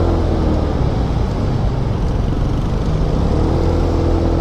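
Riding noise from a Kymco Super 8 125cc scooter under way: steady wind rumble on the camera microphone over the running single-cylinder engine, with a faint hum coming and going.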